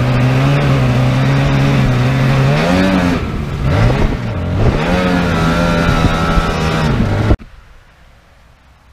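Sea-Doo 787 two-stroke twin jet-ski engine driving a jet boat, running at a steady throttle, then rising and dipping in pitch with throttle changes before settling at a higher steady pitch. The engine sound cuts off suddenly about seven seconds in.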